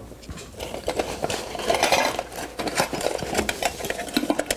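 Hands rummaging in a fabric pouch of camping cook gear: rustling material with many small clicks and clinks of metal utensils and cookware.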